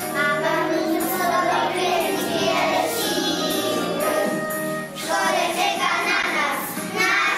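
A group of young children singing together in chorus, with musical accompaniment.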